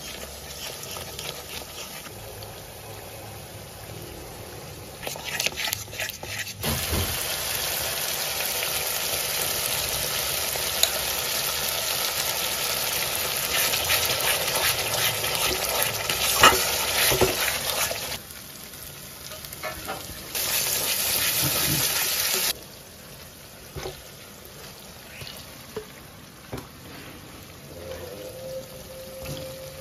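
Food frying in hot oil in a pan, with stirring and the odd clink of a utensil. The sizzle comes in two loud stretches, one from about seven seconds in to eighteen and a shorter one a little later, each starting and stopping sharply.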